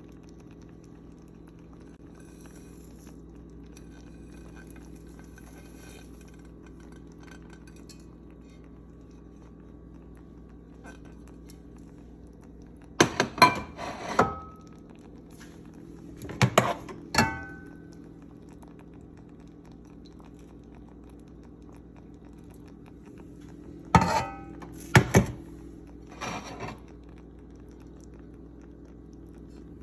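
Kitchenware clinking and knocking: three short clusters of sharp metal or crockery knocks with a brief ring, over a steady low hum.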